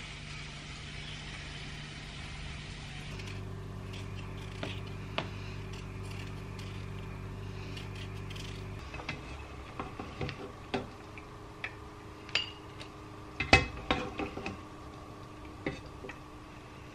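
Kitchen tap water running for a few seconds, then a steady low hum, then scattered clicks and knocks of a slotted spoon and crockery against a steel cooking pot. The loudest is a quick cluster of knocks about two-thirds through.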